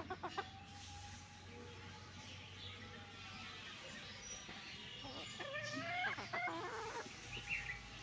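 Hens clucking while foraging: a few short clucks at the start, a long drawn-out call, then a louder run of clucks about five to six seconds in.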